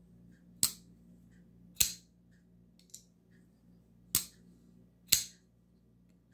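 Ganzo Adimanti Neformat ball-bearing flipper knife being flicked by its flipper tab, the blade snapping into place with four sharp metallic clicks and one faint click between them. A steady low hum from a fridge and freezer runs underneath.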